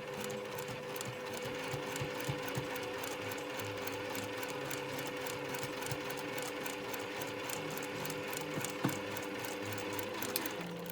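Electric sewing machine stitching a seam: a steady motor hum with fast, even needle strokes, stopping at the very end with a click.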